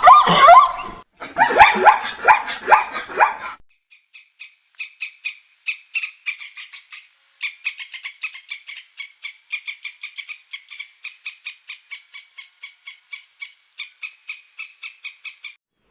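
Animal calls: loud wavering calls for the first few seconds, then a long quick series of short high chirps, about four or five a second, which stops just before the end.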